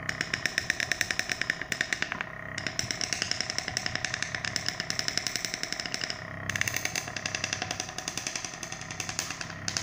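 Homemade flame-heated resonant free-piston engine running, its oscillating piston knocking in a fast even rhythm of roughly eight to ten strokes a second. The rhythm eases briefly about two and six seconds in.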